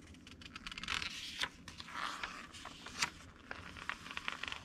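A glossy magazine page turned by hand: a run of papery rustling and scraping, with sharper crackles about one and a half and three seconds in.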